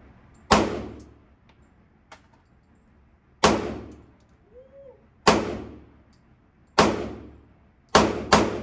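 .40-calibre pistol fired six times in slow, irregular succession, the last two close together. Each shot echoes and dies away in the hard-walled indoor range.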